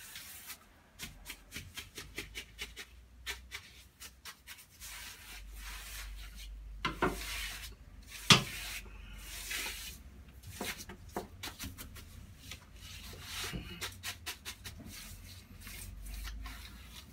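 A 4-inch paintbrush, used as a wallpapering brush, sweeping textured paintable wallpaper flat against a wall: quick, repeated rubbing strokes of the bristles over the paper, with two sharper, louder strokes about seven and eight seconds in.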